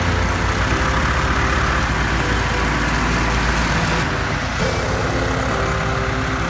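Heavy farm machinery running steadily with a low engine rumble, changing character about four seconds in, under background music.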